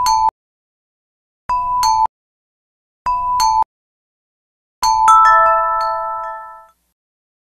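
Bell-like chime jingle, a sound effect added in editing: three short two-note chime figures about a second and a half apart, then a longer chord that rings and fades out, with dead silence between them.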